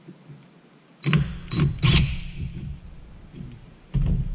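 Cordless quarter-inch impact driver running in short hammering bursts about one to two seconds in, driving bolts down on a skid-steer cooling-fan angle-drive gearbox housing; a heavier knock near the end.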